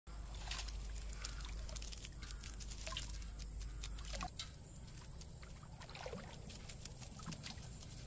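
Water splashing and dripping as a wet china duari net trap is handled and shaken out into a pot in shallow water, with irregular small splashes and taps.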